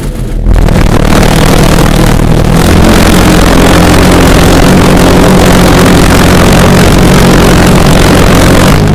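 Big home-built pulse jet engine catching about half a second in, then running steadily in a very loud, continuous low drone of rapid combustion pulses.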